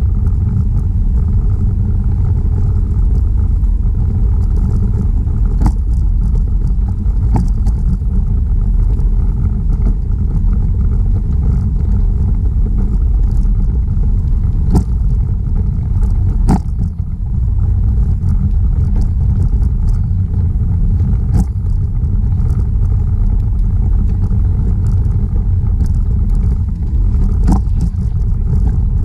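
Steady low rumble of wind buffeting a bicycle-mounted action camera's microphone and tyres rolling over asphalt while riding. A handful of sharp clicks and knocks come through, from the bike jolting over cracks in the pavement.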